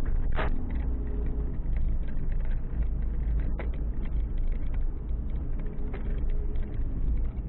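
Car driving on a wet road, heard from inside the cabin through a dashcam: a steady low rumble of engine and tyres, with two faint clicks.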